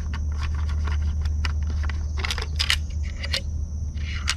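Scattered light clicks, clacks and scrapes as the sections of a DeWalt 20V pole saw are handled, over a steady low hum.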